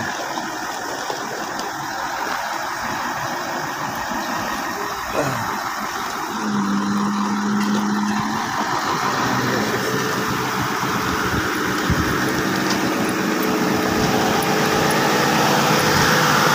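Diesel engine of a Tadano ATF 160-ton all-terrain crane running, growing louder and rising in pitch over the last few seconds. A steady tone sounds for about two seconds a little before the middle.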